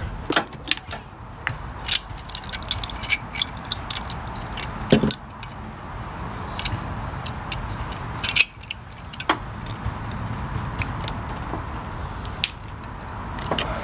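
Irregular sharp metallic clicks and clinks of a screwdriver and a battery cable terminal being worked over a shim, with a couple of louder knocks about five and eight and a half seconds in.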